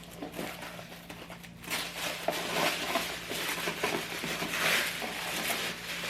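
Packaging rustling and crinkling as an item is pulled out of a box, with small clicks and knocks, louder from about a second and a half in.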